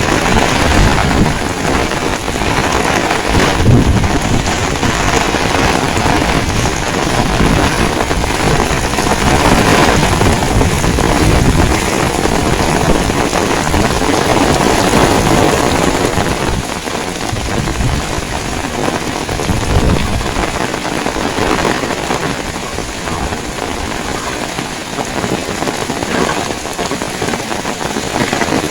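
Heavy rain pouring down, a loud dense hiss with a rumbling low end from the wind. It eases a little about halfway through.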